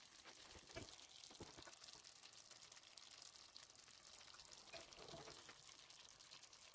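Faint sizzling and crackling of chicken wings adobo with potatoes as its soy-and-vinegar sauce reduces in a stainless steel pan, with a few louder pops.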